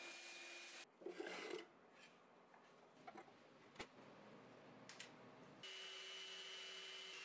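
A shop vacuum running through a hose nozzle, cut off about a second in, then a few knocks and clicks of handling in a wooden drawer. Near the end a random orbital sander with dust extraction runs steadily on a wooden board.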